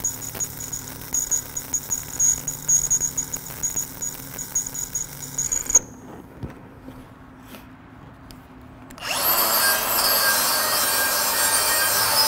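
Shielded metal arc (stick) welding with a 7018 electrode, crackling and sputtering steadily during a weave fill pass. The arc is broken about six seconds in, stopping mid-pass to leave a spot for a tie-in. About three seconds later an angle grinder spins up and runs steadily against the weld.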